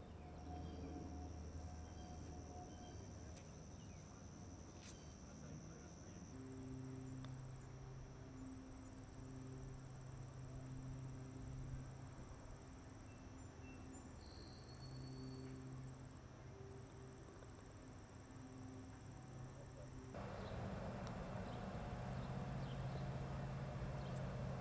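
Outdoor ambience of insects trilling steadily, with a high, even tone. Through the middle section a low, steady hum comes and goes, and the background shifts abruptly twice.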